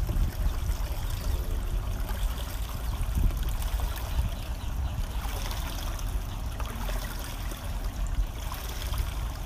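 Pool water trickling and lapping as a tiger lies and shifts in it, over a low, irregular rumble.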